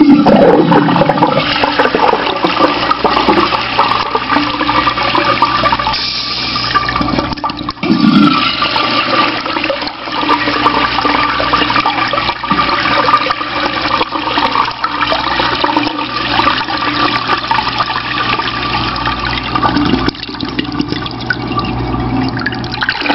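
American Standard Trimbrook urinal flushing: water comes on suddenly and rushes down the bowl, swirling into the drain. The uploader found the flush beautiful but short of pressure.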